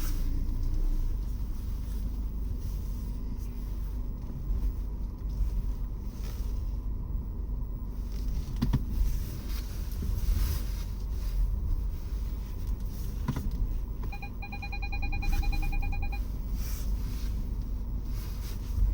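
Cabin noise of a Peugeot 508 SW while driving: a steady low road and drivetrain rumble with a few sharp knocks. About fourteen seconds in, a rapid electronic beeping lasts about two seconds.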